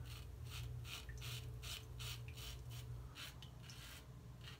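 Early-1900s Superior lather-catcher safety razor scraping through beard stubble in quick short strokes, about four a second: the sound of a blade cutting well. The strokes stop near the end.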